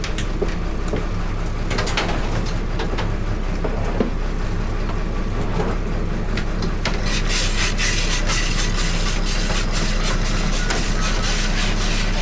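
A crab boat's engine running steadily, with scattered clicks, knocks and scraping as blue crabs are sorted in the cull box and wire crab pots are handled at the rail.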